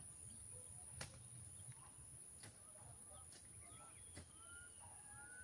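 Near silence with faint bird calls: several short rising chirps in the second half, and a few faint clicks.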